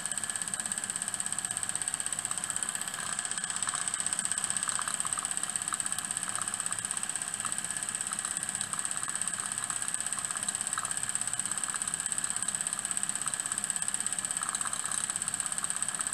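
Small single-cylinder, double-acting model steam mill engine with a slide valve running fast under steam. It gives a rapid, even beat over a steady high hiss.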